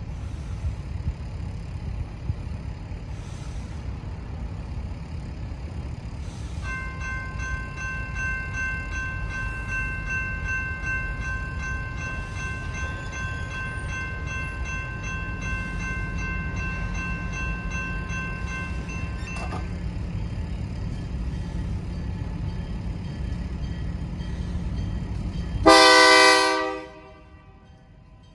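Low rumble of approaching freight locomotives, with a steady high multi-note tone sounding for about thirteen seconds in the middle. Near the end, a single loud locomotive air horn blast of about a second.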